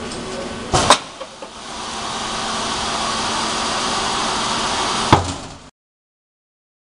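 Ultrasonic welding machine cycling: a loud sharp clunk about a second in, then a steady hiss that builds up and holds for about three seconds, ending in a second clunk before the sound cuts off.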